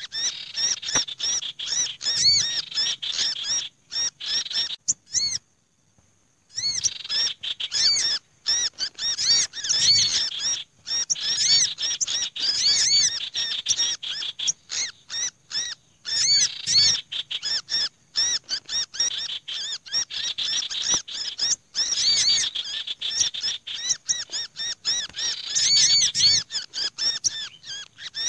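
A busy bird-trapping lure mix of small songbirds' scolding and distress calls: common iora chattering, olive-backed sunbird calling excitedly, and black-naped monarch giving trapped-bird distress calls. Dense rapid high chirps and trills follow almost without pause, with one brief silent break about five seconds in.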